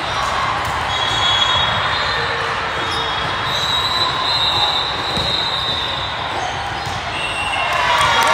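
Echoing background din of a large hall full of volleyball courts during a rally: a steady wash of crowd noise with thin high squeals over it. The noise swells near the end.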